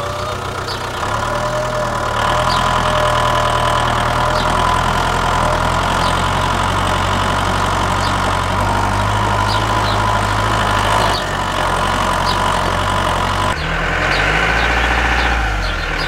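Tractor engine idling steadily, with a brief dip about two-thirds of the way through.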